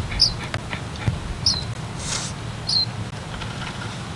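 Baby bird cheeping: short, high chirps that drop in pitch, about one every second and a quarter.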